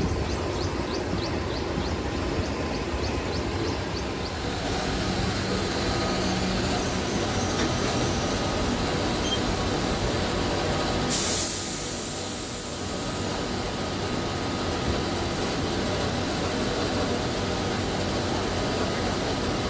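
Steady mechanical din of tire-retreading workshop machinery. A rapid ticking, about three a second, runs through the first four seconds, and a sharp hiss comes in suddenly about eleven seconds in.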